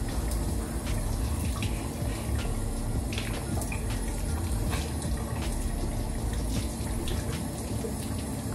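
Tap water running steadily while a face is washed, with scattered small splashes.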